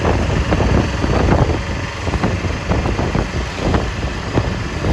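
Auto rickshaw (tuk-tuk) driving along, heard from inside its open cabin: a steady engine drone with frequent irregular knocks and rattles.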